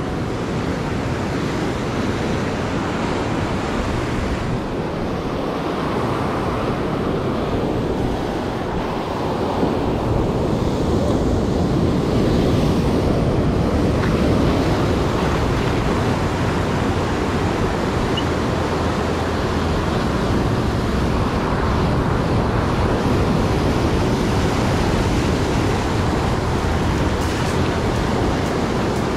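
Sea surf breaking and washing over shoreline rocks, a steady rushing that swells a little louder about ten seconds in, with wind buffeting the microphone.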